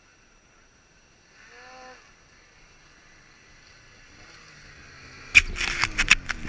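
A snowmobile engine is heard growing louder, its pitch slowly falling. About five seconds in it is cut into by a rush of noise and several loud sharp knocks.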